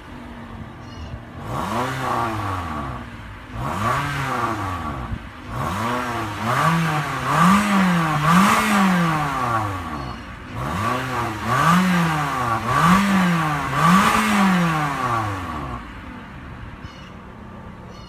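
2016 Toyota Corolla's 1.8-litre four-cylinder engine heard at the tailpipe, revved repeatedly while parked: two single revs, then two runs of a rev followed by three quick blips. It drops back to a steady idle near the end.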